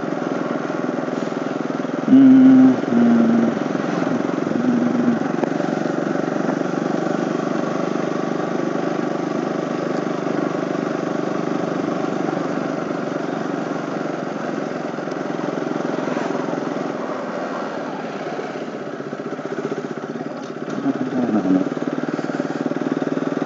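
KTM RC 200's single-cylinder engine running steadily under way, with wind noise over the helmet camera. About two seconds in, a short pitched sound stands out above the engine, followed by two fainter ones.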